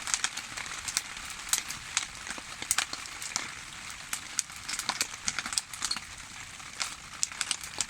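Wood campfire burning, with frequent irregular sharp crackles and pops over a steady hiss.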